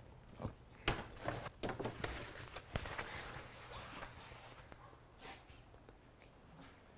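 Kayaking gear being handled: a nylon life jacket rustling, a few light knocks, and footsteps on a hard floor, mostly in the first few seconds.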